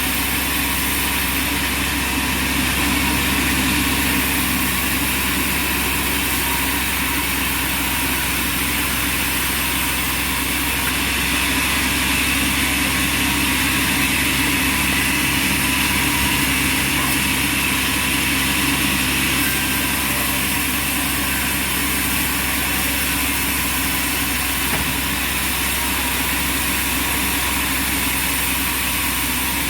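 Band sawmill running steadily: a constant machine hum with several steady tones and a hiss above them, with no clear change in load.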